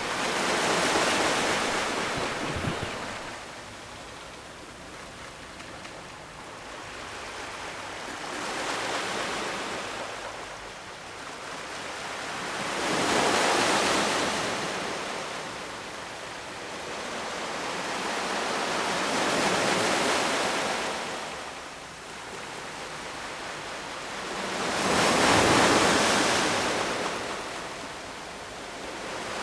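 Ocean surf breaking on the shore, a rushing wash that swells and recedes wave after wave, about five surges, the loudest near the end.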